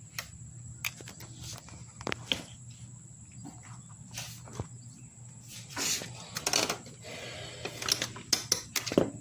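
Scattered clicks, knocks and short scrapes of a riding lawnmower's wheel and its metal hardware being handled and fitted back onto the axle, busier in the second half.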